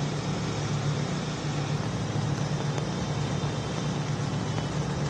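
Road traffic on a rain-flooded street: a steady low engine hum under a constant hiss of rain and wet road.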